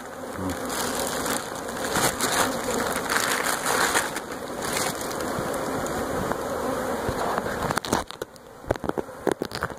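Honeybees buzzing around an opened wild hive, over the rustle of a plastic bag and the crunch of honeycomb being handled. A quick run of sharp knocks and clicks comes near the end.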